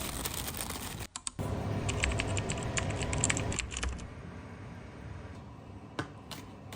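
A quick run of light clicks and taps, dense for a couple of seconds and then thinning out, with one more click near the end.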